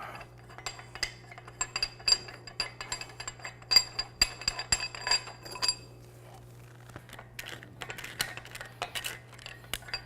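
Steel tie rods being pulled out of a pump's casing and handled, making an irregular string of light metal-on-metal clinks, each with a short ring. A low steady hum runs underneath.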